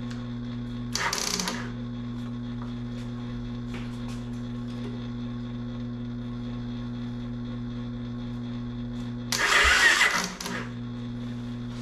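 Two short bursts of noise, the second louder and longer, over a steady low hum: brief tries of the electric starter on a 1985 Honda ATC 250SX run from a jump box.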